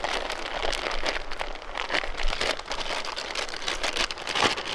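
Plastic zip-lock bag crinkling and rustling in the hands as it is squeezed and worked with bannock dough mix inside, in a steady run of crackles.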